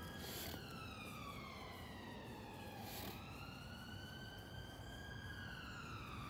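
A faint emergency-vehicle siren wailing: its pitch slides slowly down over a couple of seconds, jumps back up about three seconds in and falls again. Under it is a steady low rumble.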